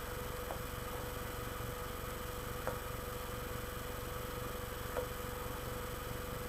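Steady low electrical hum with a faint steady whine, broken by three soft clicks roughly two seconds apart.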